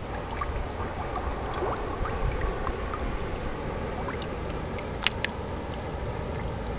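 Shallow lake water sloshing and trickling as a carp is lowered back into it by hand for release, over a steady low rumble, with a sharp click about five seconds in.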